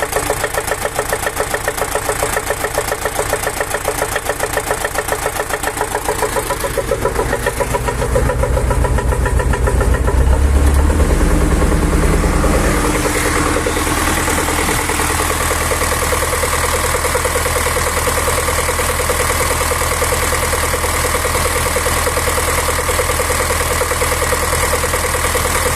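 YuMZ-6 tractor's four-cylinder D-65 diesel running with a rhythmic hammering knock. It gets louder and changes about eight seconds in, then settles to a different steady note from about thirteen seconds. The owner hears the knock as coming from under the valve cover, although the valves were adjusted and needed no change, the engine starts well and pulls, and oil pressure is 4 cold and about 2 warm.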